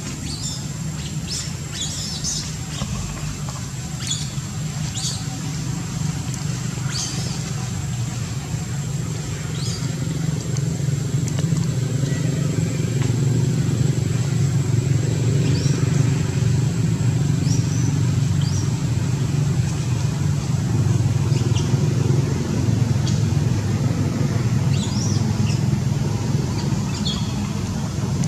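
A steady low motor drone that grows louder about ten seconds in, with short, high bird chirps scattered over it.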